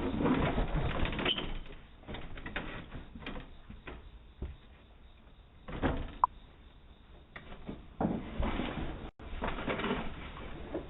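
A door being handled: irregular knocks, rattles and scraping, heard through a doorbell camera's narrow-band microphone, with one brief high chirp about six seconds in.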